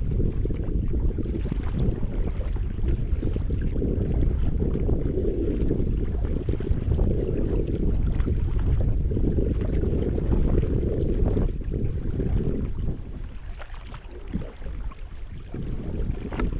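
Kayak paddle strokes and water splashing under heavy wind rumble on the kayak-mounted camera's microphone. The wind noise eases near the end.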